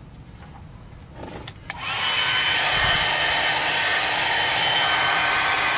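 Handheld blow dryer switched on about two seconds in and running steadily, a loud rush of air with a thin high whine. A few small clicks of handling come before it.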